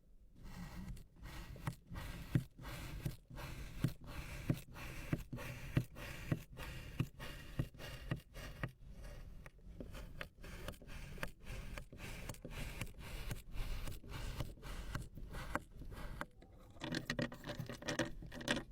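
Close-up crisp cutting and scraping strokes, repeated about twice a second, with a denser rustling stretch near the end.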